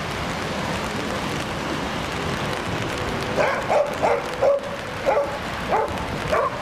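Young dog barking repeatedly at a protection helper in a hold-and-bark, short sharp barks about twice a second starting about halfway through, over a steady background hiss.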